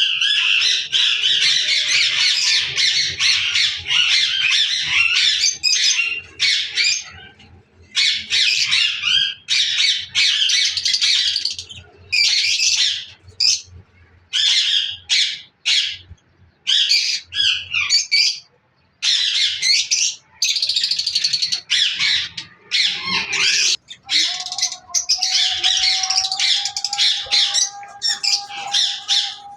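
Lovebirds calling: a dense, high-pitched chatter in bouts of a few seconds with brief gaps between them.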